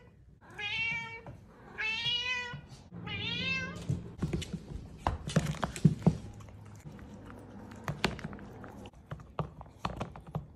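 A ginger cat meows three times, then a string of irregular knocks, thuds and clicks follows as the wobbly cat eats clumsily from a collapsible bowl on a wooden floor.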